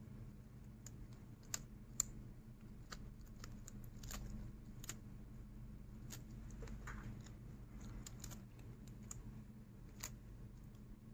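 Faint, irregular clicks and taps, a few sharper ones among them, over a low steady hum: handling noise from a gloved hand working a steel ruler covered with a condom against a table.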